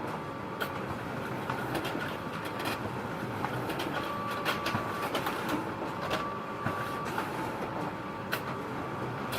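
Photocopier running: a steady mechanical whir with irregular clicks and clacks from its paper-handling mechanism, and a thin high tone that comes and goes for about a second at a time.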